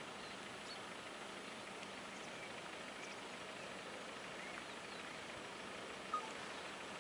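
Steady low hum of a distant truck-mounted drilling rig's engine running, under an even hiss, with faint chirps and one brief, sharper chirp about six seconds in.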